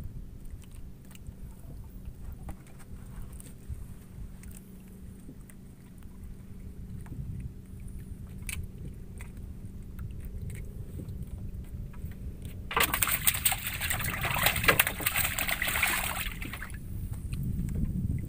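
Low, steady rumble of wind and water around a small wooden outrigger boat, with faint scattered clicks. About two-thirds of the way through comes a few seconds of loud splashing and sloshing of water in the bottom of the hull.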